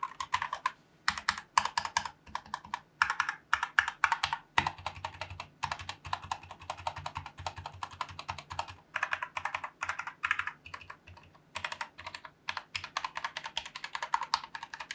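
Typing on a Kemove DK61 mechanical keyboard with brown pre-lubed Gateron switches and PBT keycaps: quick runs of keystroke clacks broken by short pauses, as a sound test of how loud it types.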